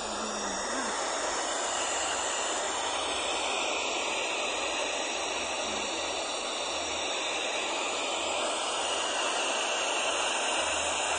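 Steady white-noise hiss, even and unbroken, of the kind played to soothe a baby to sleep.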